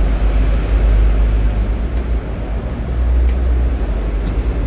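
Double-deck electric tram running, heard from on board: a steady, loud, low rumble with rolling noise and a few faint clicks.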